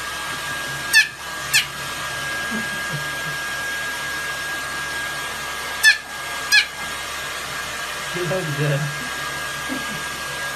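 Hair dryer blowing steadily with a thin steady whine, drying a wet puppy's fur. Two pairs of short, sharp, high chirps falling in pitch cut through, about a second in and about six seconds in.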